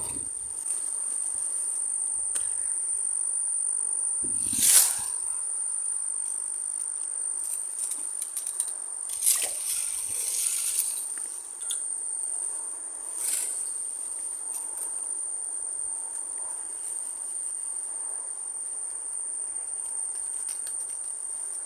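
Steady high-pitched chirring of insects, unbroken throughout, with a few sudden knocks and rustles; the loudest is about five seconds in.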